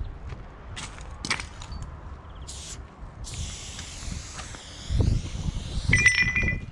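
Aerosol spray paint can hissing as silver paint goes onto a wall: a few short sprays, then one longer spray of about two seconds. A brief high squeal and some low rumbling thumps come near the end.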